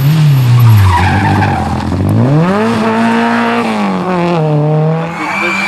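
Rally car engine run hard. Its pitch falls in the first second as the car slows and shifts down, climbs steeply about two seconds in and holds high under acceleration, then drops back to a lower steady note near the end.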